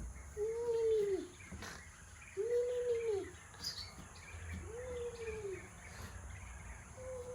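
A low hooting bird call, repeated four times about two seconds apart; each call is a single arched tone that rises and falls in under a second.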